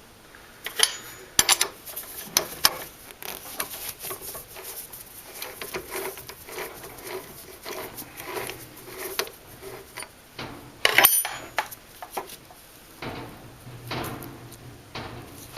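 A metal lathe chuck being handled: irregular clinks and knocks of metal parts, with softer handling noise between and the loudest clank about eleven seconds in.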